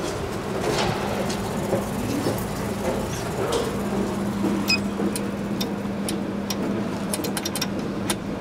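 SMW machine-room-less traction elevator running in its glass shaft: a steady low hum that starts about a second in and grows stronger midway, over background traffic and station noise. Scattered light clicks come in the second half.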